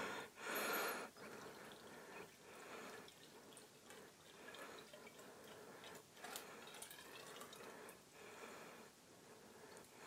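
Faint trickling and dripping of water running through a washing machine's drain, poured in backwards to test the drain path; it comes through freely, a sign that the drain is not blocked. A brief louder noise comes in the first second.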